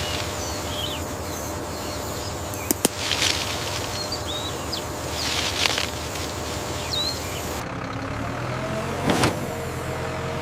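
A vehicle engine running steadily, likely a truck, with several sharp knocks and clunks over it and a few brief high chirps.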